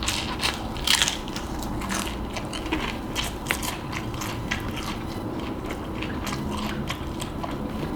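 Close-up chewing and biting of crispy fried chicken, a run of irregular crunches and wet clicks.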